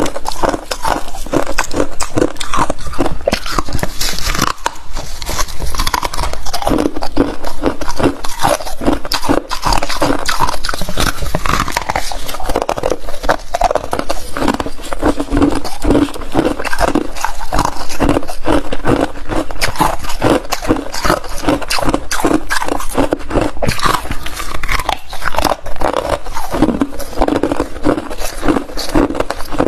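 Close-miked biting and chewing of soft freezer frost: a dense, continuous run of quick, crackly crunches, with the soft frost chunks also crushed and pulled apart in gloved hands.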